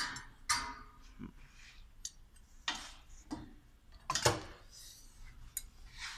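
Metal automatic-gearbox parts clinking and knocking against each other as they are handled and fitted during reassembly: a handful of separate clinks, the loudest about four seconds in.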